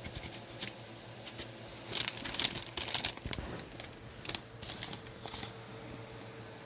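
Paper bag crinkling and rustling in several bursts, loudest about two to three seconds in, as a cat lying in it shifts and is handled.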